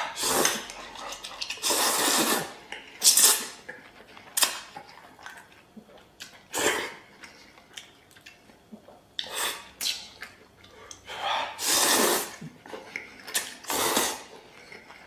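A man slurping stir-fried noodles in big mouthfuls, with a string of loud, hissing slurps every second or two and chewing in the quieter gaps between them.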